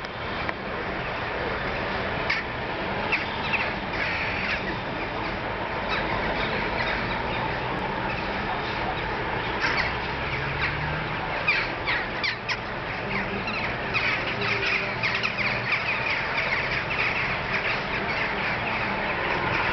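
A flock of birds calling continuously, a dense chatter of many short overlapping calls that grows busier about halfway through.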